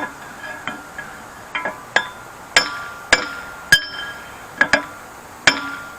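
Hammer blows on the steel of a rust-seized post vise, working a stuck part loose. About ten sharp strikes come at irregular intervals, each ringing briefly.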